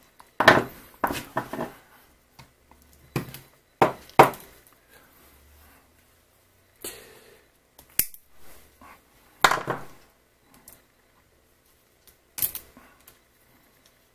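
Hand disassembly of a plastic hot air soldering handpiece: scattered clicks, knocks and rustles of its plastic housing parts and a pair of pliers being handled, with one sharp click about eight seconds in.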